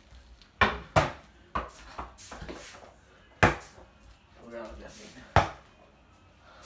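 A small ball bouncing and knocking off hard surfaces: five or so sharp knocks at uneven gaps, the loudest about three and a half and five and a half seconds in.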